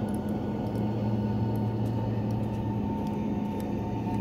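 A steady machine drone: a low hum with a higher whine held at one pitch, plus a few faint ticks.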